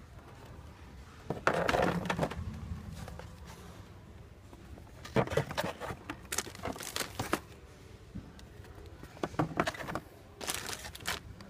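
Plastic blister packs of toys rustling and crinkling as they are handled and shifted on a shelf, in three bouts of a second or two each.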